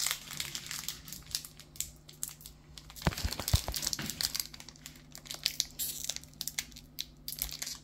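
Foil booster-pack wrapper crinkling and crackling irregularly as it is twisted and picked at; the pack is stuck and won't tear open. A few dull thumps come a little past three seconds in.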